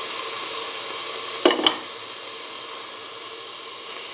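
Oil sizzling steadily in a stainless steel pan around shallots and ground beetroot paste, with two sharp clicks close together about a second and a half in.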